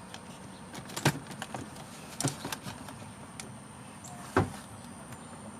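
Scattered sharp clicks and light knocks of hands and tools working on a car's shifter linkage. The loudest click comes about four and a half seconds in, under a faint steady high whine.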